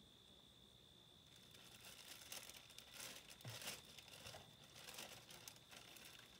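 Paper packaging rustled and crinkled by hand in irregular bursts, starting about a second in, over a faint steady high-pitched whine.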